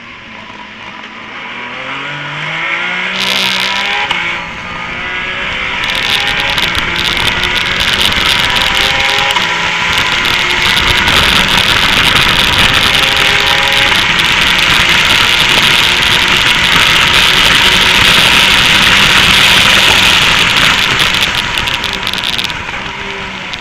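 A Porsche 911 GT3 Cup race car's flat-six engine accelerating hard off the start. Its pitch climbs, with a break at a gear change about four seconds in. It then settles into loud, sustained engine and wind noise at racing speed, easing off near the end.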